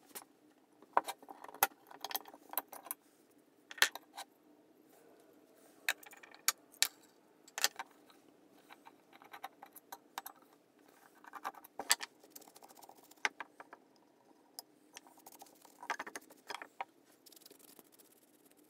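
Steel parts of a vintage Anchor hand plane being taken apart on a wooden bench: irregular sharp clinks and clacks as the blade, chip breaker and lever cap are set down and a screwdriver works on the frog screws. A soft brushing sound comes near the end.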